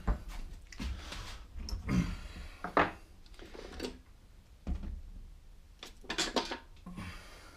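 Scattered metallic clinks and knocks of hand tools and nuts and bolts being handled against a lawnmower's steel deck, a few sharper clinks among softer handling knocks.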